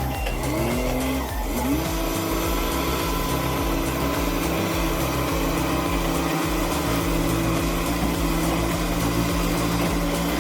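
Bulldozer's diesel engine running. Its pitch rises and falls a few times in the first two seconds as it revs, then holds a steady note.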